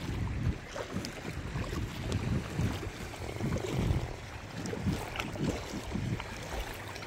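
Water splashing and lapping around a kayak as it is paddled along, with wind gusting on the microphone in low, uneven rumbles.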